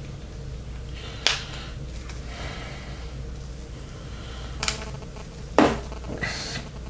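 Sharp clicks and knocks of hands working parts and cables in a computer case: one about a second in, two more close together later, then a short rustle, over a steady low hum.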